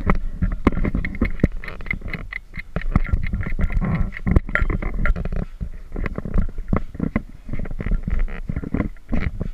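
Workout noise on a rubber gym floor: irregular thuds and knocks from kettlebell handling and bodies dropping to the floor in burpees, over a low rumble.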